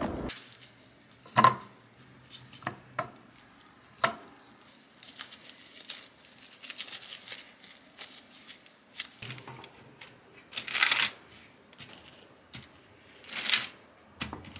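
Cookie dough being torn into portions and rolled by hand in disposable plastic gloves, with crinkling of the gloves and soft taps as the dough balls are set down on a parchment-lined baking tray. Two louder rustles come near the end.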